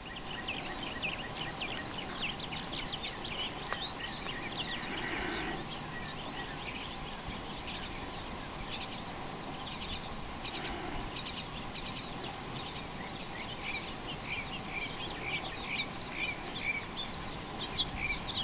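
Small birds singing and chirping over a steady outdoor background hiss. Near the end one bird repeats a short chirp about twice a second.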